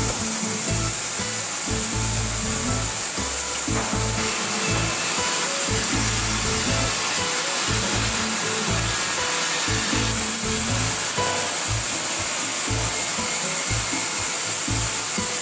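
Steady whirring of sawmill log-processing machinery, laid over background music with a pulsing bass line.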